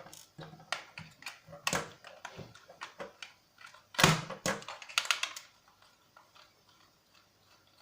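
Plastic clicks and knocks as a handheld RC remote controller's casing is handled and taken apart, with the loudest knock about four seconds in, followed by a quick run of small clicks.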